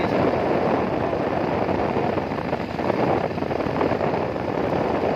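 Steady rush of wind on the microphone and road noise from a motorbike being ridden, with no distinct engine note above it.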